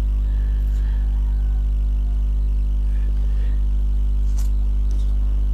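Steady electrical mains hum with a buzz of evenly spaced overtones, unchanging throughout. A single short click comes near the end.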